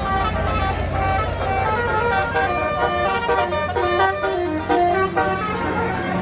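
Bus telolet horn of the basuri type playing a quick melody of short stepped notes, over the steady low rumble of the bus engine.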